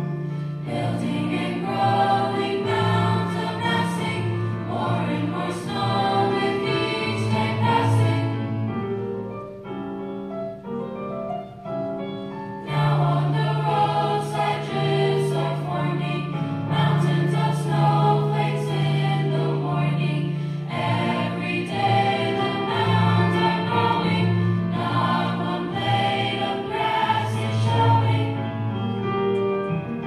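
School chorus of teenage voices singing together in parts, with long held notes. The singing drops softer for a few seconds about ten seconds in, then comes back at full strength.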